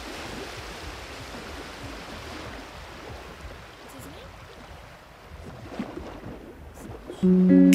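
Steady hiss of wet-street traffic heard from inside a car cabin. About seven seconds in, loud background music with guitar comes in.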